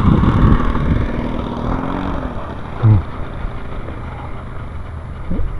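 Radio-controlled model Cessna's four-stroke engine running at low throttle as the plane comes in to land, with a low rumble underneath; the engine keeps running rather than dying.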